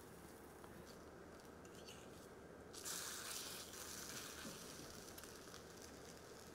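Faint sizzling of spinach pancakes frying in butter in the wells of a small-pancake pan. The sizzle turns suddenly louder and brighter about three seconds in.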